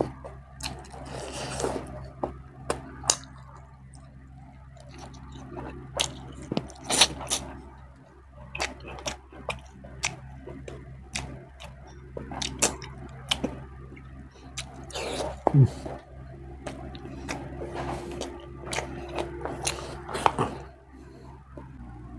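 Close-up eating sounds of a person chewing milkfish and rice eaten by hand: irregular wet smacks and mouth clicks, over a faint steady low hum.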